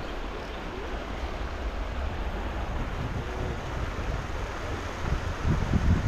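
Steady rush of flowing river water, with wind buffeting the microphone in low rumbles that grow stronger near the end.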